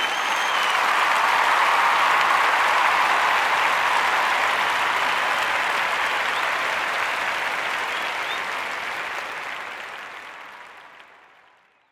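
Applause from a crowd, steady and then fading out gradually near the end.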